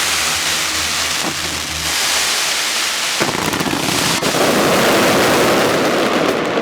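Fireworks going off: a few sharp bangs over a dense crackling hiss that grows louder from about three seconds in.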